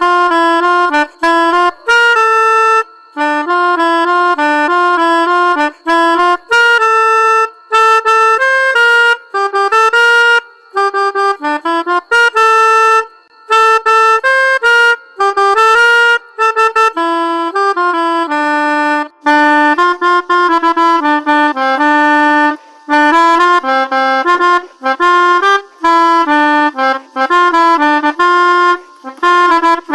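Pianika (melodica) playing a telolet basuri bus-horn tune: quick phrases of short, reedy notes, repeated over and over with brief gaps between them.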